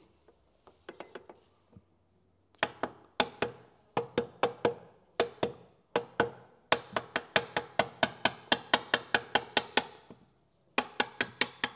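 A rapid series of sharp knocks, several a second with a short metallic ring, coming in bursts from about two and a half seconds in: parts of a vintage car gearbox being tapped into place during reassembly.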